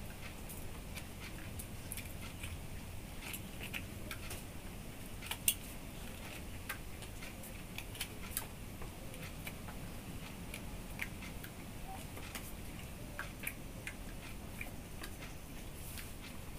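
Scattered faint clicks and small snaps of fingers digging the seeds and pulp out of small green fruit shells, at an irregular pace, with one sharper click about five and a half seconds in.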